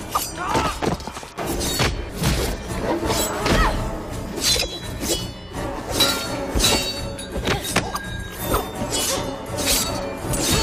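Action-film fight soundtrack: dramatic score under a rapid run of metal-on-metal clashes, blows and thuds as long metal claws strike each other, some clashes ringing briefly.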